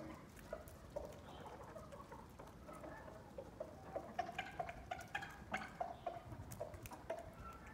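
Backyard chickens clucking in short, repeated calls, with sharp ticks of beaks pecking on a tiled floor that come thickest about halfway through.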